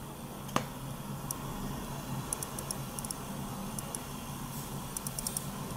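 Quiet room with a steady low hum, and a few faint clicks and ticks from hands handling a phone in a plastic flip-cover case and tapping its screen. The clearest click comes about half a second in.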